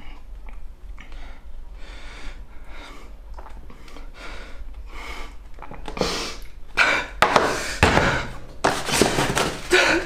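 A young man sniffling and breathing in short noisy gasps, turning from about six seconds in into loud sobbing breaths and sniffs into a tissue.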